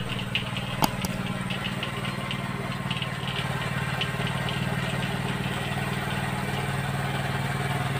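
Honda motorcycle engine running steadily at an even idle-like speed, driving a water pump. A single sharp click about a second in.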